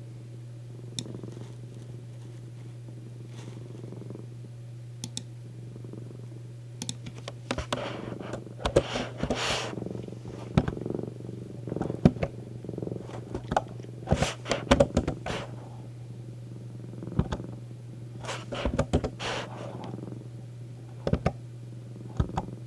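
House cat purring close up, steady and low, with irregular rustles and clicks from about seven seconds in.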